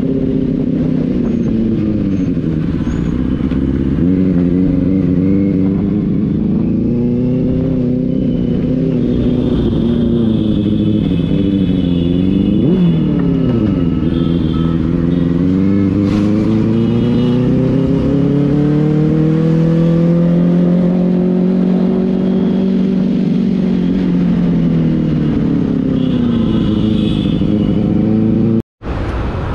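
Benelli 600i's inline-four engine running on the road, its revs rising and falling as the bike speeds up, shifts and slows, with a sharp drop and recovery in revs about halfway through. The sound cuts out for an instant near the end.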